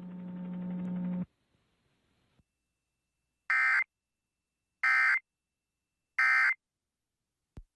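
Emergency Alert System end-of-message signal: three short, identical bursts of buzzy digital data tones, about 1.3 s apart, marking the end of the monthly test. Before them a low hum cuts off about a second in.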